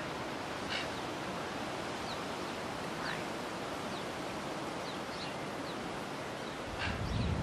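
Open-field ambience: a steady rush of wind on the microphone, with a few short bird chirps scattered through it and a louder low gust near the end.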